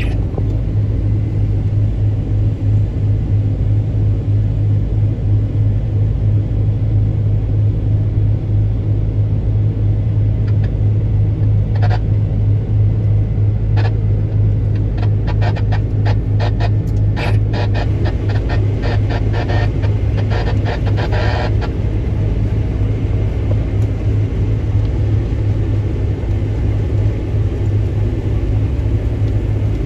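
Combine harvester running while cutting wheat: a steady low rumbling drone with a strong hum. From about 12 to 21 seconds in, a run of sharp, irregular ticks rides over it.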